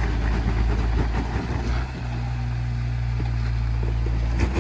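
Jeep engine running at low, steady revs while crawling over rocks, with a few small clicks and knocks. The engine note shifts slightly about two seconds in.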